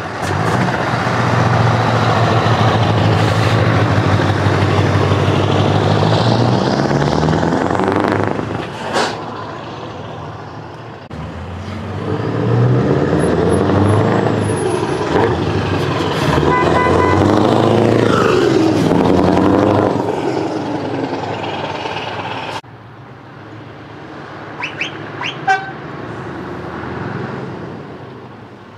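Scania trucks' diesel engines running loud through open exhaust pipes as they pull past one after another, the engine note rising and falling. There is a short, sharp burst about nine seconds in, and short horn toots in the middle and again near the end.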